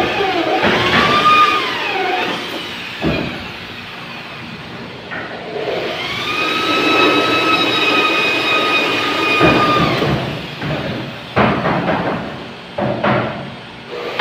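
Electric drill boring through galvanized iron sheet. Its whine sags and recovers as the bit bites in the first couple of seconds, runs steady for a few seconds in the middle, then winds down. A few sharp metal knocks come late on.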